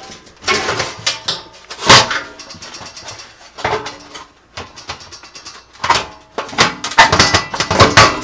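Sheet-metal oven bottom panel clanking and scraping against the oven cavity as it is lifted and worked out from under the front lip. Irregular sharp metal knocks, the loudest about two seconds in and a quick run of them near the end.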